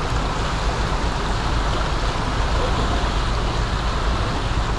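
Steady rush of fast, turbulent river water pouring out below a dam spillway, with a deep continuous rumble underneath.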